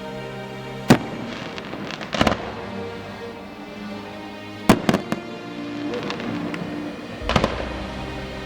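Aerial fireworks bursting: four sharp bangs spread over the few seconds, some breaking into short quick clusters of cracks, over music.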